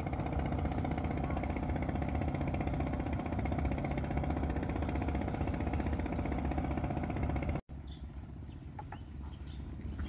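A small engine running steadily with a fast, even beat. It cuts off suddenly about three-quarters of the way through, leaving a quieter background with a few light clicks.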